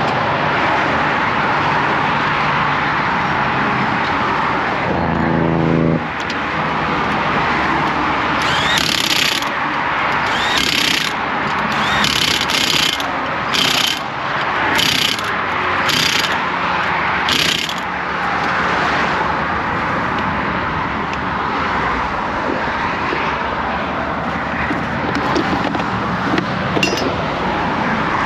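Highway traffic rushing past steadily. In the middle, an Ingersoll Rand 20 V half-inch cordless impact wrench fires in seven short bursts, tightening the lug nuts on the spare wheel.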